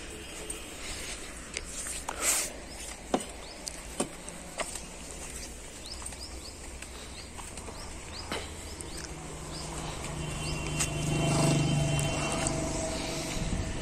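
Outdoor ambience: birds chirping, a few sharp knocks, and a steady humming tone that swells about ten seconds in.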